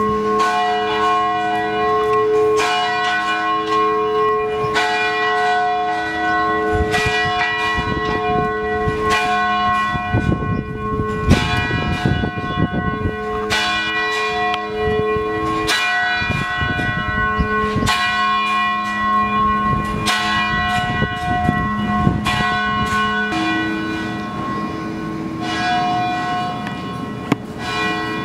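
Several church bells pealing, struck one after another with long overlapping rings of different pitches. A patch of low rumbling noise runs under the bells around the middle.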